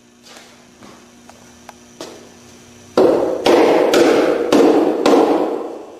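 A claw hammer strikes the wooden frame of a nailed triangle dome panel: a few light taps, then about five heavy blows roughly half a second apart, starting about three seconds in, as the nails are driven home.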